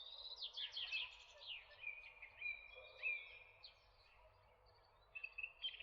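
Small songbirds chirping and trilling, several quick high notes and a short run of rapid chirps near the end, over a faint steady background hiss.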